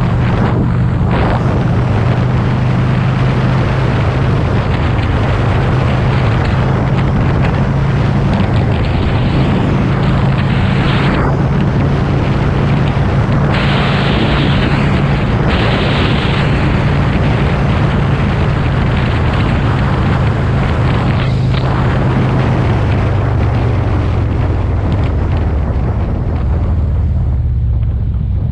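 Motorcycle engine running steadily under way, with heavy wind noise buffeting the microphone.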